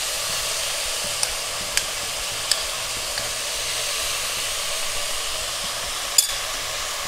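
Sliced vegetables sizzling steadily in oil in a pot over a high gas flame. A spoon clicks lightly a few times in the first seconds, with one sharper click near the end, as sauce is scooped from a glass jar.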